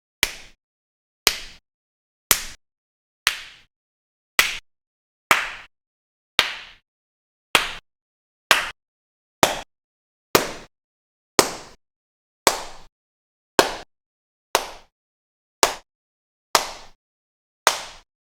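Single hand claps, one about every second, each sharp with a short echoing tail and silence in between, like a slow, even clap.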